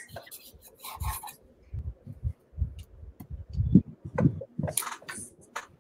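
Drawing on paper: short irregular scratching strokes of pens on paper, mixed with small clicks and low knocks of drawing tools against a desk.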